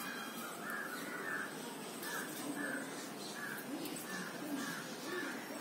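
Birds calling in a steady series of short repeated calls, about two a second.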